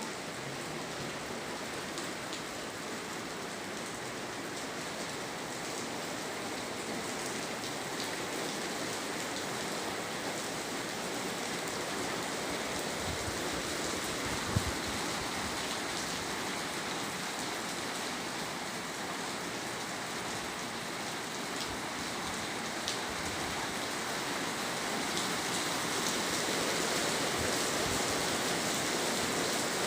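Steady rain falling, getting a little louder over the last few seconds, with one brief thump about halfway through.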